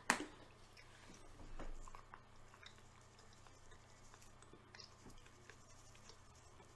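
Quiet chewing and mouth sounds, with one sharp click just after the start. Faint light taps follow later as grated cheese is shaken from a shaker can onto food.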